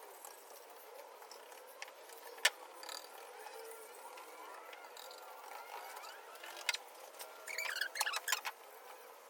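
Paint brush working over a car's metal floor pan: faint scraping of the bristles, a sharp click about two and a half seconds in, another near seven seconds, and a quick run of clicks and taps near the end.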